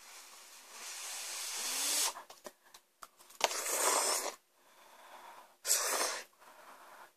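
A person slurping instant cup noodles: one long slurp, then two shorter ones about three and a half and six seconds in.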